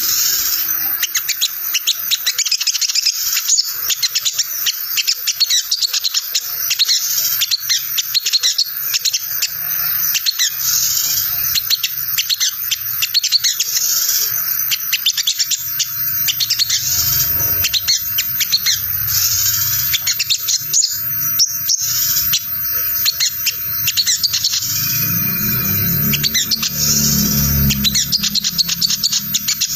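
Olive-backed sunbird giving a rapid, continuous high-pitched chattering 'ngriwik' call, the agitated call used as a lure to make other sunbirds answer. A low rumble runs under it near the end.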